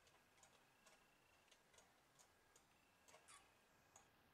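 Near silence with faint, short ticks, two or three a second, unevenly spaced.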